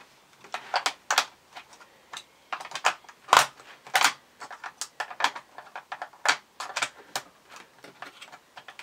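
Keys of a Polaroid full-size wireless keyboard being typed on: irregular plastic key clicks, with a few louder strikes about three and four seconds in.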